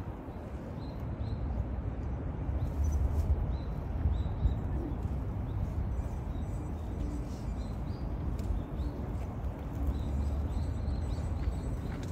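Low, gusting rumble of wind on the microphone, with small birds giving short high chirps every second or so.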